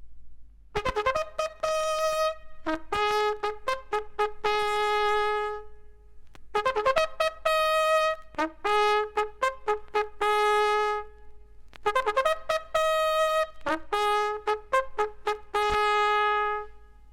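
Japanese military bugle sounding a call, the same phrase played three times: quick tongued repeated notes that leap between a few pitches, each phrase ending on a long held lower note. It is heard as an LP recording, with faint record noise in the gaps.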